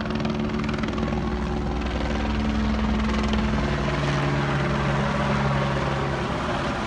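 Sheriff's helicopter flying low overhead, its rotor and engine making a steady, continuous noise. The tones drop in pitch partway through as it passes over.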